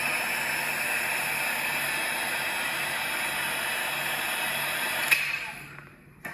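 Steady loud rushing hiss that stops with a sharp click about five seconds in and dies away.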